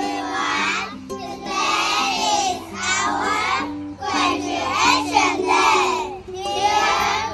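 A group of young children's voices in unison over background music with held low notes, in phrases that break about every second.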